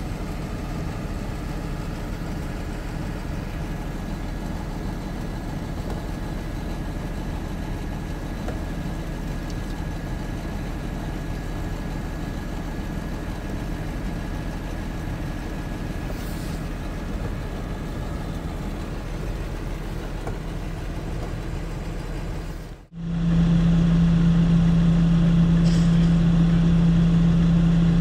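Heavy truck engine running steadily. About three-quarters of the way in, the sound drops out for an instant and comes back louder, with a strong steady drone.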